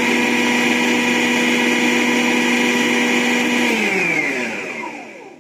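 Usha food processor motor running with a steady hum while dry-mixing flour and oil for dough. About three and a half seconds in it is switched off, and its pitch falls as the blade spins down to a stop.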